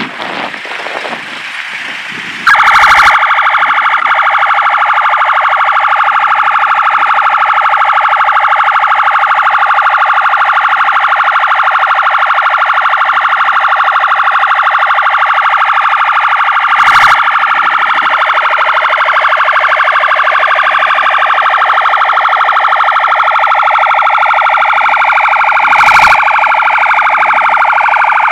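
Siren of a police Toyota pickup escort vehicle, coming in suddenly about two and a half seconds in and then sounding loudly with its pitch held nearly level. Two short sharp knocks cut through it in the second half.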